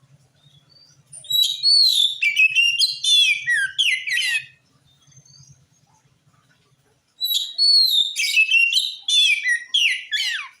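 Oriental magpie-robin (kacer) singing loudly in two long phrases of quick, varied whistles and chattering notes that glide up and down, with a pause of about two and a half seconds between them.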